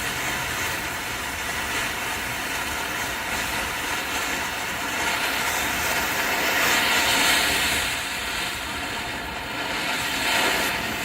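A ground fountain firework spraying sparks with a steady hiss, swelling louder about six to seven seconds in and then easing back.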